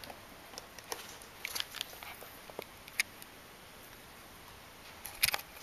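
A little husky moving about: scattered light clicks and taps, with the loudest pair just after five seconds in.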